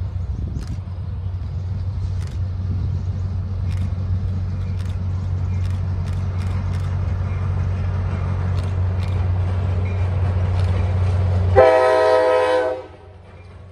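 Low steady rumble of an approaching diesel-led passenger train, growing slightly louder, then near the end one short blast of a little over a second on a Nathan K5LA multi-chime air horn, sounding as a chord, from the New Haven FL9 locomotive.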